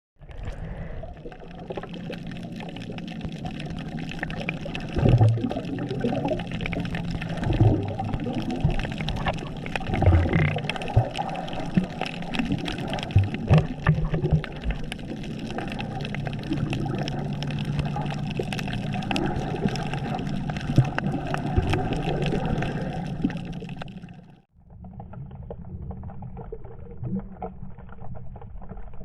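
Water sloshing and splashing close to the microphone, with irregular knocks. About 24 seconds in it cuts off suddenly to a quieter, more muffled water sound.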